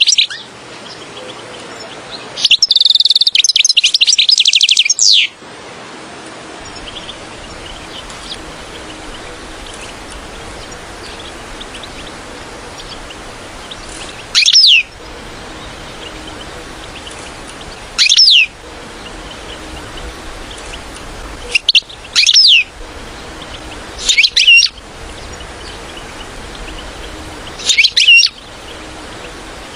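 European goldfinch: a short burst of fast twittering song about three seconds in, then single or paired short down-sweeping calls every few seconds over a steady background hiss.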